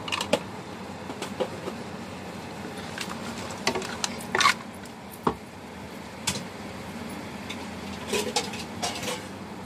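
Wooden spatula stirring whole crabs in a wok, their shells knocking and scraping against the pan in scattered clicks, with a cluster of knocks near the end. A steady hiss from the hot, simmering pan runs underneath.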